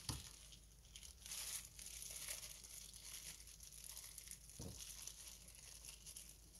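Faint crinkling of thin plastic disposable gloves as gloved hands handle and slice hot peppers with a knife on a wooden cutting board, with two soft knocks, one just after the start and one about four and a half seconds in.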